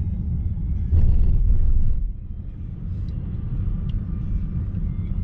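Steady low rumble of a car driving along a road, louder for about a second near the start.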